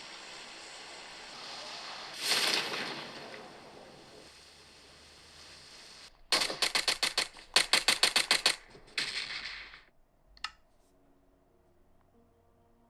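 Hands handling unboxing packaging and accessories: a rubbing swish, then three quick runs of rapid clicking and a single click.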